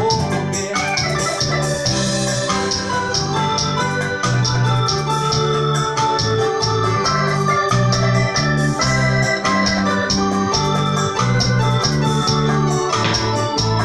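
Electronic keyboard played live with an organ-like tone: held chords and a stepping bass line over a steady percussion beat, an instrumental passage with no singing.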